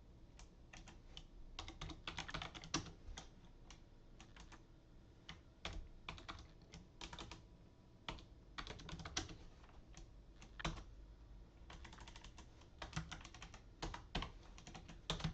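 Typing on a computer keyboard: bursts of keystrokes with short pauses between them.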